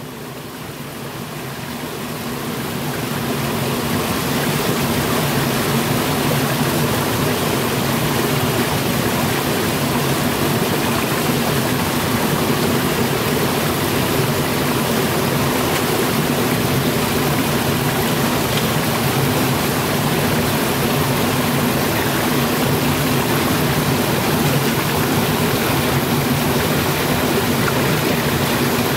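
Shallow river rushing steadily over rocks and small rapids, fading in over the first few seconds.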